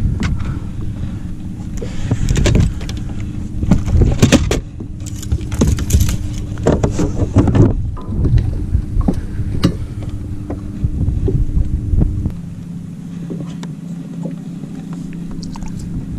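Knocks and clatter of handling on a bass boat's deck over a steady low hum and rumble. The rumble drops away about twelve seconds in, leaving a quieter hum.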